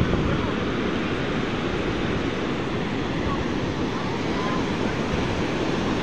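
Ocean surf breaking on a sandy beach, a steady rush of waves, with wind buffeting the microphone.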